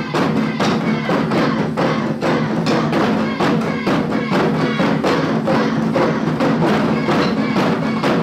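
Taiko drum ensemble playing a fast rhythm, drums and rims struck a few times a second over a sustained accompanying tone.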